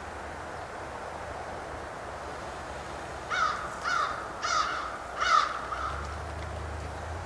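A bird calling four harsh, repeated calls in a row, a little under a second apart, over a steady background hiss.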